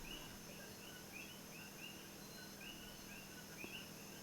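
Faint, quick high chirps from a small animal, repeating irregularly about three times a second over a low steady hum.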